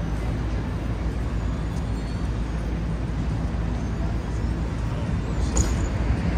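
Midtown Manhattan street traffic: a steady rumble of engines and tyres with a low engine hum underneath. A short, sharp, high sound cuts through about five seconds in.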